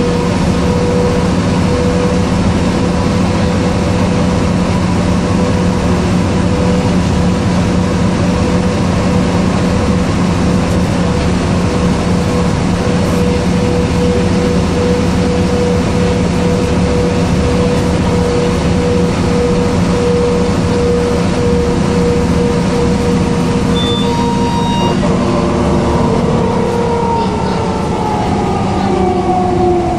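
Mercedes-Benz O405 bus driving, heard from inside the cabin: a steady engine drone with a held whine from its ZF automatic gearbox, the howl the bus is known for. Over the last few seconds the whine falls in pitch, with a short high beep just before.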